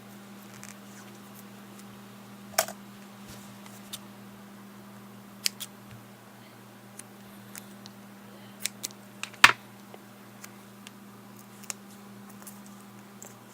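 Irregular small clicks and snips of electrical tape being handled, cut and pressed over a freshly soldered joint. The two loudest clicks come about two and a half and nine and a half seconds in, over a faint steady hum.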